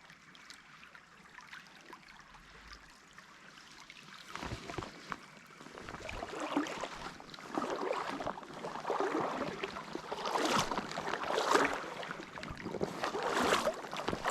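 Legs in waders pushing through a shallow stream: repeated sloshes of water about a second apart. They start a few seconds in and grow louder.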